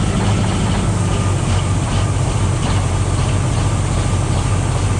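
Old semi truck's diesel engine idling steadily just after a cold start, with a deep, even hum.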